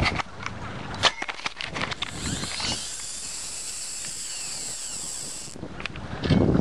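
Fishing reel handling: a few sharp mechanical clicks, then a high whirring hiss for about three and a half seconds as line runs off the spool, cutting off sharply. Near the end comes a loud low rumbling thump from handling the gear.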